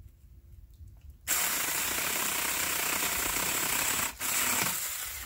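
Saker 4-inch battery-powered mini chainsaw starting up about a second in and cutting into an overhead tree branch, with a steady high whine. It stops briefly about four seconds in, then runs again.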